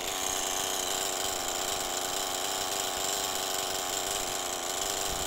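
Two-stroke chainsaw engine idling steadily, an even buzz with no revving.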